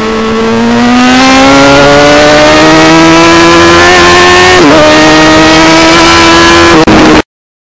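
Sport motorcycle's loud exhaust, heard right at the silencer while riding: the engine note climbs steadily under acceleration, drops briefly about four and a half seconds in, then holds steady until it cuts off suddenly about seven seconds in.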